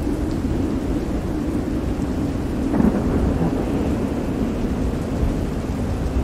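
Steady heavy rain over a continuous low rumble of thunder and rough sea, swelling briefly about three seconds in.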